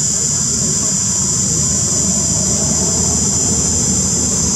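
Insects droning steadily at a high, unbroken pitch over a constant low rumble.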